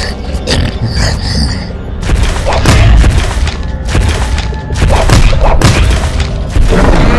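Repeated deep booms and thuds, a cartoon's crash and impact effects, over background music.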